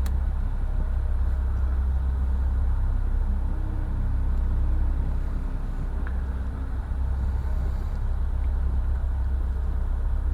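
A steady low hum, with a couple of faint light clicks as small wooden grating strips are pressed together and fitted.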